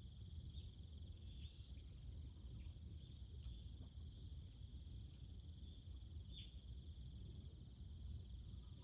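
Steady outdoor insect chorus, a continuous high trill, with a few faint scattered ticks and a low background rumble.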